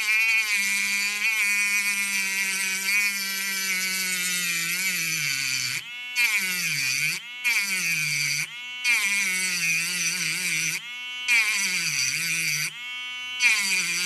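Mini precision rotary tool (mini Dremel) cutting through the metal shield on a phone motherboard: a high motor whine whose pitch dips as the cutting disc bites into the metal, then recovers. The whine cuts off briefly several times.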